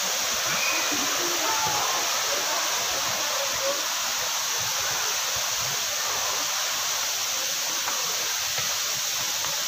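Steady rushing of a waterfall pouring into its pool, an even hiss that does not change. Faint voices of people can be heard in the first couple of seconds.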